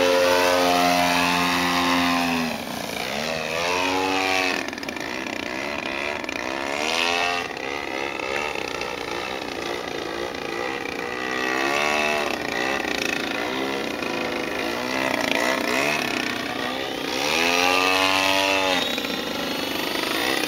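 Large radio-controlled Edge 3D aerobatic plane flying, its motor and propeller rising and falling in pitch again and again as the throttle works through the manoeuvres. Loudest near the start and again near the end as it passes closer.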